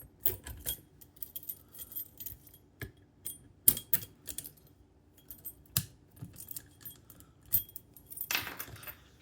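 Irregular small metallic clicks and clinks of a Master Lock Magnum padlock and metal pieces being handled, with a short scrape near the end.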